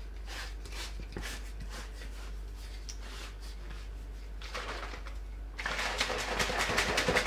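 Protein shake of milk, powder and oil sloshing in a plastic shaker bottle shaken hard by hand, in a steady rhythm of strokes. The shaking grows much louder and faster about five seconds in.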